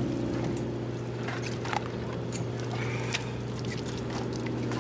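Dive boat's engine running steadily, a constant low hum, with a few sharp knocks about a second and a half and three seconds in.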